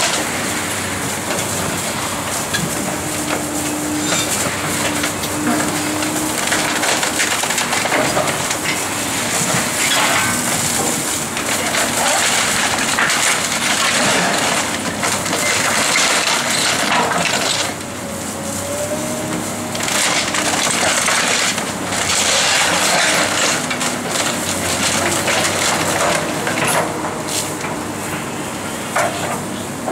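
Hydraulic excavator demolishing a brick building: continuous crunching and cracking of brick and wood debris as the bucket tears into the walls. The excavator's engine runs steadily underneath.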